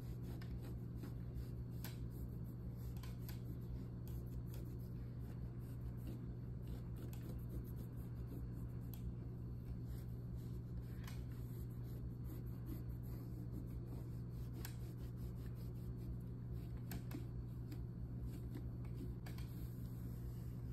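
A cloth rubbing and wiping over the skin of a carved pumpkin: soft, irregular rustles and small scrapes over a steady low hum.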